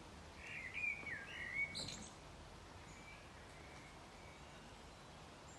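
A bird's short warbling call, a few quick whistled notes sliding up and down, from about half a second to two seconds in, over faint steady outdoor background noise.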